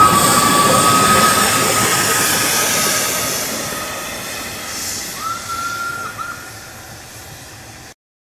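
Narrow-gauge steam locomotive hauling a coach away and fading, with steam hiss and a high steady squeal that dies down, then short squeals again about five and six seconds in. The sound cuts off suddenly near the end.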